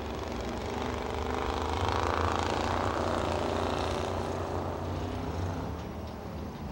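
Engines of old stock cars racing on ice, running hard. The engine sound swells about two seconds in as a car passes, then eases off.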